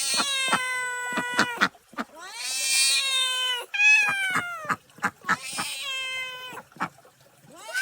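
A cat meowing: four long, drawn-out meows, some falling in pitch at the end, with short sharp clicks between them.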